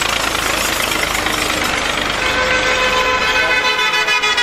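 Road traffic passing, then a vehicle horn sounding from about two seconds in, held with a rapid pulsing towards the end.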